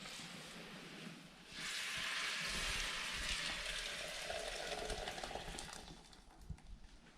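Food sizzling in a hot pan: a hiss that swells suddenly about a second and a half in, holds steady, then dies down near the end.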